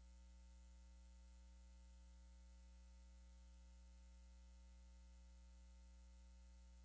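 Near silence: a faint, steady low hum that does not change.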